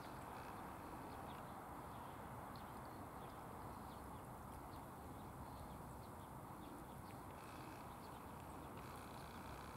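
Cat chewing food: faint, irregular small clicks and crunches over a steady outdoor background hiss.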